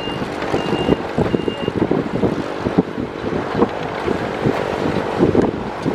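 A heavy earthmoving machine's engine running, with its reversing alarm beeping three times, once every three quarters of a second, then falling silent under two seconds in.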